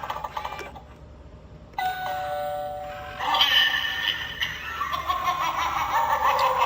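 Animated Halloween eyeball doorbell playing a two-note ding-dong chime through its small speaker about two seconds in, the second note lower. The chime runs straight into another recorded sound effect.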